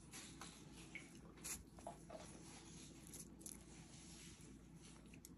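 Near silence, with a few faint soft taps and squishes as silicone-tipped tongs lay strips of grilled chicken on a pita.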